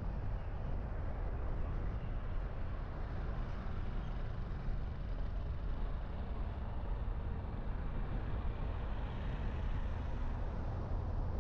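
Steady low rumble of a car on the move: engine and tyre noise heard from the dashcam, even throughout with no other events.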